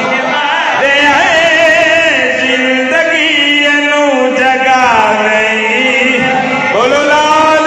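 A zakir chanting a devotional recitation into a microphone in long held notes with wavering pitch, sliding down around five seconds in and up again near the end.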